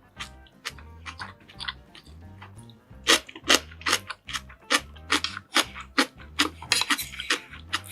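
Close-miked eating sounds: a fast run of sharp, short clicks and crunches from chewing, denser and louder from about three seconds in. Underneath runs background music with a repeating low bass pattern.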